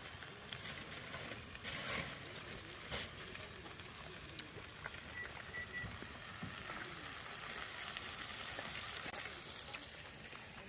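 Pork belly sizzling as it grills, with sharp pops and crackles scattered through the hiss. The sizzle grows louder about seven seconds in.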